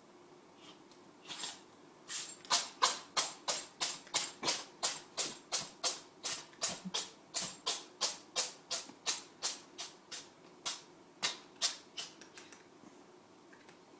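A cat sneezing in a fast run of about thirty short, sharp sneezes, roughly three a second, after a couple of weaker ones. It is trying to clear a blade of grass stuck in its nose.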